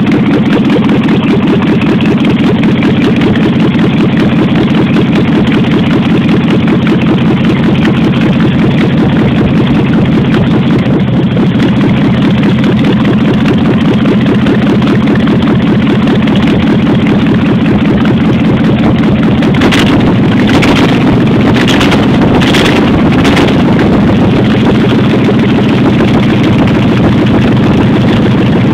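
A 1989 Jeep Grand Wagoneer's carbureted AMC 360 V8 idles steadily with its valve covers off, with an uneven lope that is called 'a nice little waddle'. A few short noisy bursts come over the engine sound about twenty seconds in.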